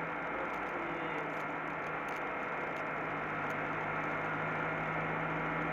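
Steady drone of a vehicle's engine and road noise inside the cab, picked up by a dashcam, with a constant low hum and an even hiss and no sudden events.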